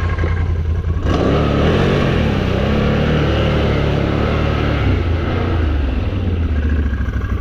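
Can-Am Renegade XMR 1000's V-twin engine revving under load, its pitch rising and falling from about a second in, as the quad ploughs through mud and water. Muddy water sprays from the tyres over the engine.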